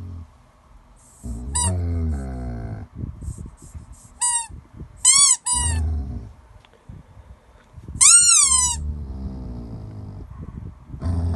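Snoring: low, rough breaths every few seconds, with short high whistling squeaks between them that rise and fall in pitch, the loudest about eight seconds in.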